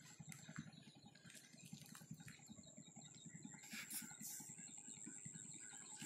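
Near silence: faint outdoor ambience with a steady high thin whine and a few soft ticks, a little stronger about four seconds in.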